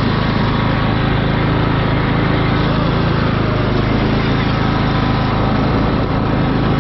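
Cub Cadet riding lawn mower's engine running steadily as the mower drives across the grass.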